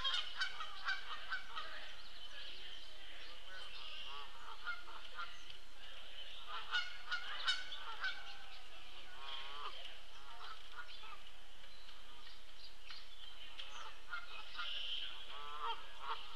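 Wild birds chirping and calling over a steady high-pitched background chorus, with bursts of quick repeated calls and a few short sharp taps.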